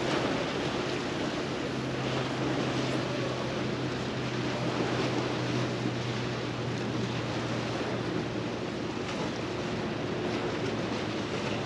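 Steady wind and water noise, with a low steady engine hum that fades out about eight and a half seconds in.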